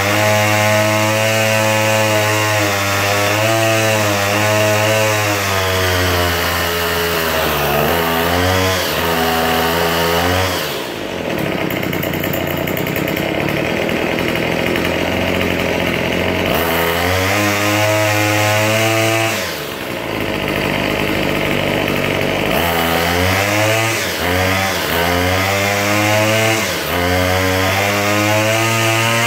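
Small two-stroke string trimmer engine running and being revved up and down repeatedly, with a longer spell at high revs from about eleven to sixteen seconds in.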